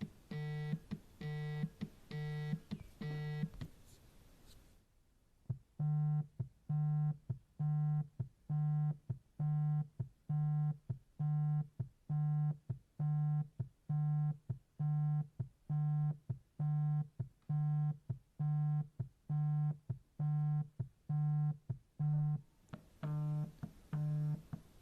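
Mobile phone vibrating in short, even buzzes about two a second. The buzzing breaks off about four seconds in, then starts again with a new run of pulses. The pattern changes slightly near the end.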